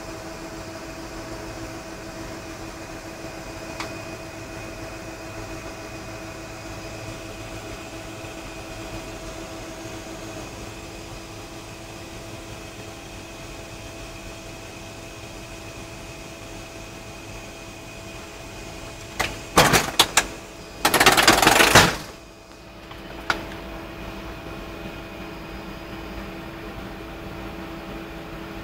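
Steady aircraft interior hum with several held tones. About twenty seconds in come a few sharp knocks, then a loud burst of noise lasting about two seconds.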